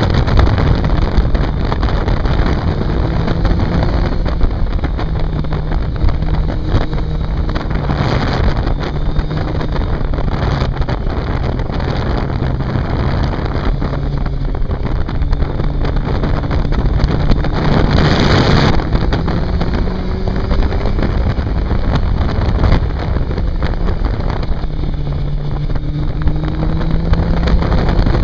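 Motorcycle engine pulling hard through a series of bends, its pitch repeatedly rising and then dropping as the rider accelerates and eases off, under heavy wind noise on the microphone. The wind swells louder for about a second midway.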